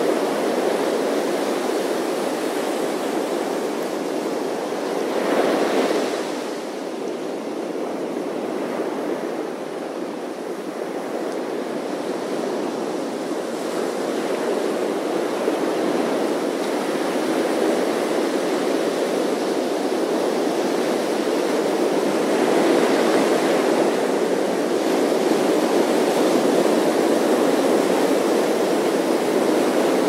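Ocean surf breaking and washing up a sandy beach, a steady rushing wash. One wave crashes about five seconds in, the surf eases for a few seconds after, then builds and stays louder through the last third.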